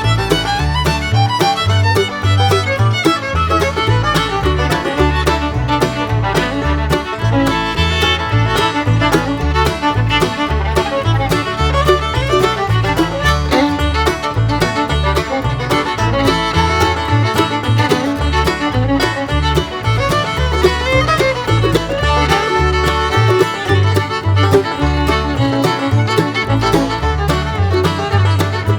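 Background music: an upbeat bluegrass tune led by fiddle over a steady bass beat.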